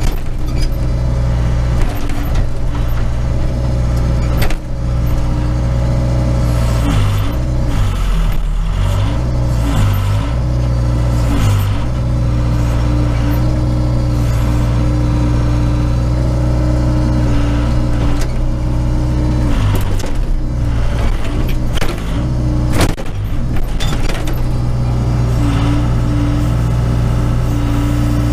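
Case 580 Super K backhoe's diesel engine running steadily, heard from inside the cab. While the hoe is worked, its pitch dips briefly several times as it takes load, and a few sharp knocks come through.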